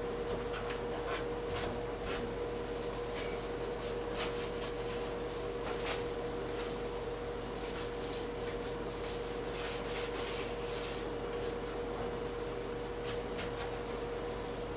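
Irregular scraping and rubbing strokes as built-up grime is cleaned by hand off a washer door hinge part. The strokes come in clusters, thickest in the first half, over a steady hum.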